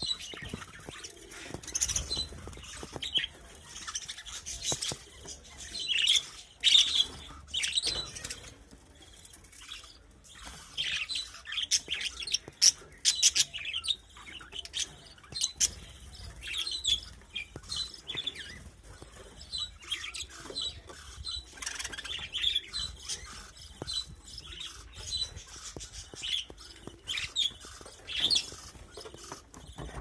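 A flock of budgerigars chirping and chattering, with many short high chirps overlapping.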